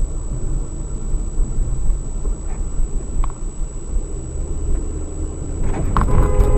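Steady low road and engine rumble inside a moving car's cabin, recorded by a dash camera, with a thin, faint high whine over it. It grows louder near the end.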